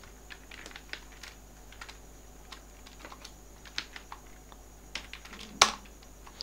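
Computer keyboard typing: irregular key clicks, with one louder keystroke near the end.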